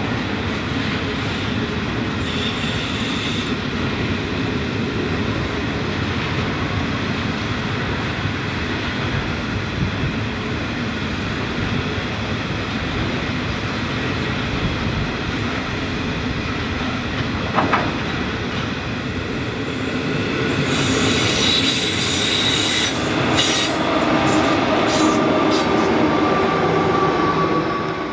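Coal hopper wagons of a narrow-gauge freight train rolling past with a steady rumble of wheels on rail and some clickety-clack over rail joints. About two-thirds of the way through it gets louder and the wheels squeal with high, ringing tones and sharp ticks.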